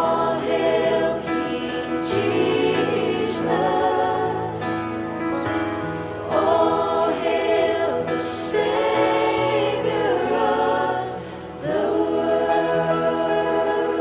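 A choir singing a slow gospel worship song over held low accompaniment notes. The voices dip briefly about three-quarters of the way through, then come back in.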